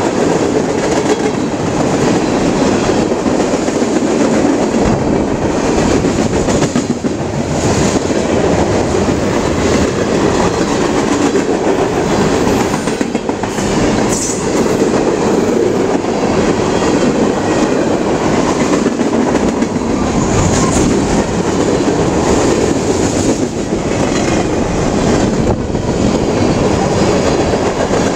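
Freight train of tank cars, hoppers and boxcars rolling past at close range: a steady, loud rumble of steel wheels on rail with the clickety-clack of wheels crossing rail joints.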